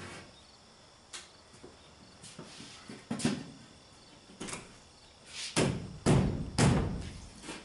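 Wooden knocks and thumps as long wooden props and boards are set and wedged against the roof frames inside the hollow box body of the truck: a few single knocks, then a louder run of thumps near the end.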